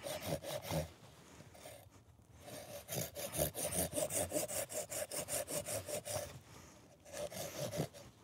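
Felco 640 pruning saw cutting a V-notch into a thin branch with quick, short strokes, several a second. The strokes come in three runs with two brief pauses, about a second in and again near the end.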